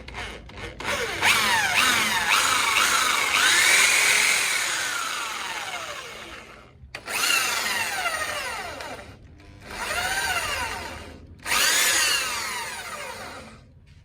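An electric power tool motor run in four bursts, its whine rising as it spins up and falling in pitch as it coasts down after each release.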